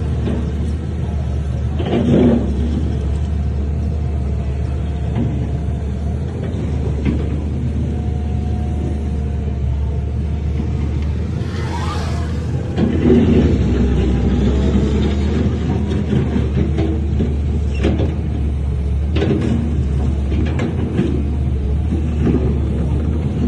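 Heavy diesel earth-moving machinery running with a deep, steady engine rumble, with occasional knocks and clanks and a brief whine that rises and falls about twelve seconds in.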